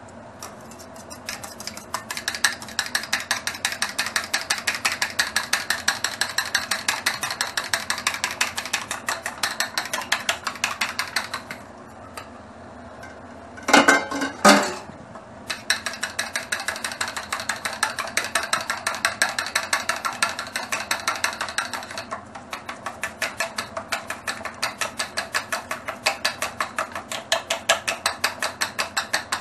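Chopsticks whisking raw eggs in a stainless steel bowl, a rapid, even clicking against the metal. The beating stops about 12 seconds in, a louder clatter comes about two seconds later, and then the beating starts again.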